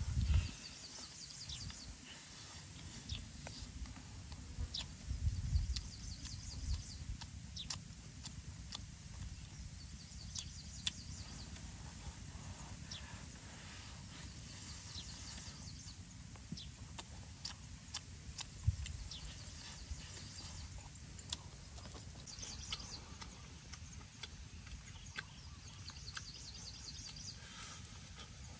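A person eating roasted frog by hand: wet chewing and lip-smacking with scattered sharp mouth clicks and a few low thumps. Faint high chirping runs in the background.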